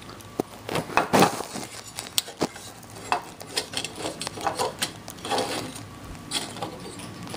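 Irregular clicks, taps and light rattles of a kerosene lamp's metal burner assembly and glass parts being handled and taken apart, with the loudest knocks about a second in.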